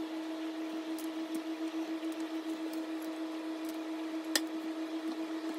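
Broccoli florets being broken off the stalk by hand on a wooden board: a few faint snaps and one sharp snap about four seconds in, over a steady electrical hum.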